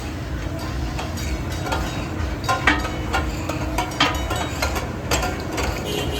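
Steel spatulas striking and scraping a flat iron tawa griddle as katakat offal is chopped and stirred: irregular metallic clanks with a brief ring, the loudest about a third, two thirds and four fifths of the way through.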